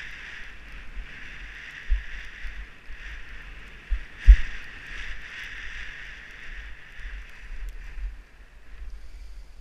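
Skis hissing steadily as they slide over packed, tracked snow, with wind buffeting the microphone and a sharp thump about four seconds in.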